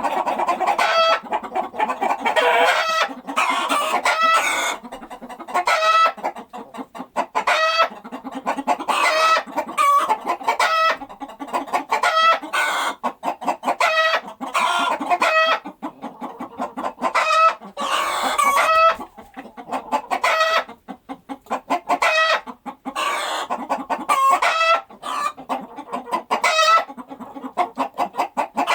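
Chickens clucking over and over: short pitched calls in quick runs, several close together and overlapping at times, with a few brief gaps.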